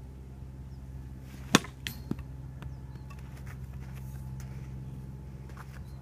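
A bat hits a ball off a batting tee with one sharp crack about a second and a half in, followed by two lighter knocks a moment later as the ball lands. A steady low hum runs underneath.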